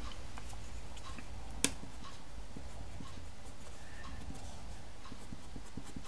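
Faint light ticks and scratches of a black pastel pencil working on textured pastel paper, with one sharp click about a second and a half in, over a low steady hum.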